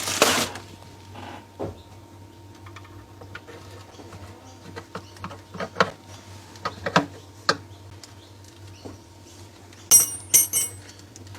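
Scattered light knocks, taps and clinks of hard objects being handled, over a steady low hum. A quick run of sharp clinks comes about ten seconds in.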